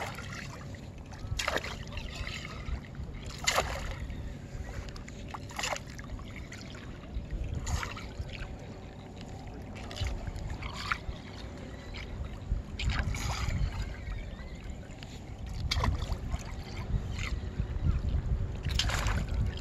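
Wind buffeting the microphone as a fluctuating low rumble, with small water splashes every few seconds.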